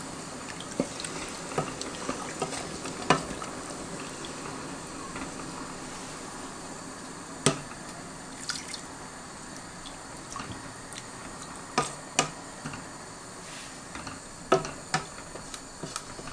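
Pot of chicken, fried onions and freshly added water heating on the stove: a steady low hiss of liquid with scattered sharp pops and drips a few seconds apart.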